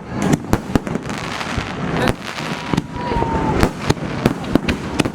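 Aerial fireworks bursting at close range: a rapid, irregular barrage of sharp bangs and crackles, several a second. A thin whistling tone falls slightly in pitch around the middle.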